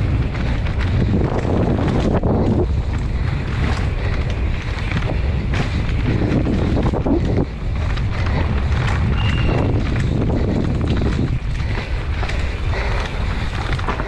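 Wind buffeting the microphone of a downhill mountain bike's onboard camera at speed, over a continuous clatter of knocks and rattles from the bike and its tyres on a dirt and rock trail.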